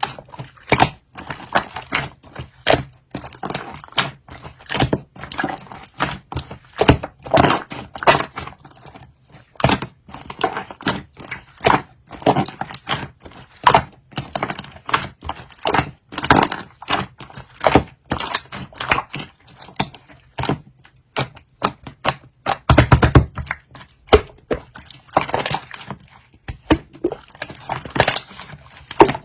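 Slime being played with by hand: an irregular run of sharp clicks and pops, several a second, as it is pressed, folded and stretched.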